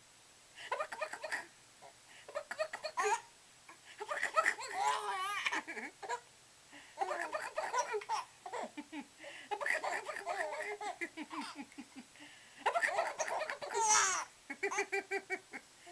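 Baby laughing hard in a string of separate bursts of giggles and longer belly laughs, with short pauses for breath between them.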